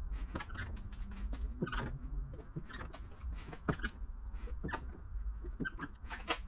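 Irregular small squeaks and clicks of a squeegee and fingertips pressing wet paint protection film around a car hood's edge, over a low steady rumble.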